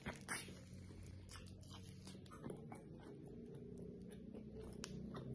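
Faint wet chewing and mouth clicks of a person eating white mutton karahi with his hands. About halfway through, a low steady hum comes in and grows a little louder toward the end.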